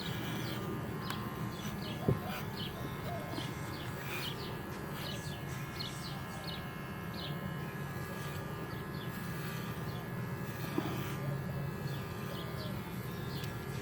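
Cordless pet clippers running with a quiet, steady buzz, shaving a dog's coat, with many short bird chirps over it.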